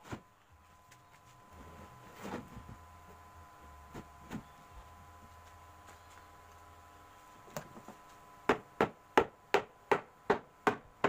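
A hammer striking plywood panels as they are fastened together: a few scattered knocks at first, then from about eight and a half seconds in a steady run of sharp blows, about three a second.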